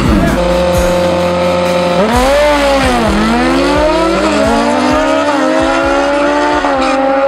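A drag-racing motorcycle's engine revving hard as it launches and runs down the strip. The pitch holds steady, then rises and dips about two to four seconds in, then settles into a steady high note as the bike pulls away.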